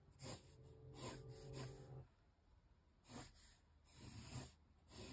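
Faint scratching of a pencil on paper as a sketch is drawn, in several short strokes with pauses between.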